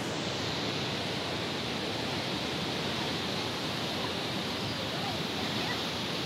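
Steady rush of running water, like a mountain stream or runoff pouring down nearby, at an even level throughout.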